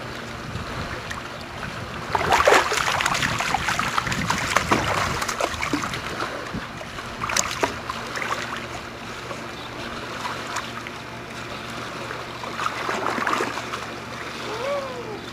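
Swimming pool water splashing and sloshing, loudest for several seconds starting about two seconds in, then settling to a softer lapping.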